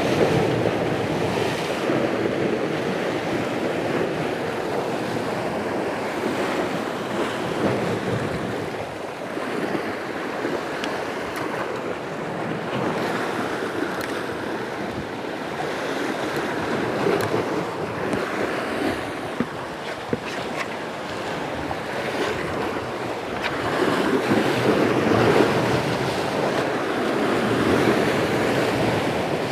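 Sea waves washing and breaking against a rocky shore, with wind on the microphone; the surf swells up about a second in and again near the end.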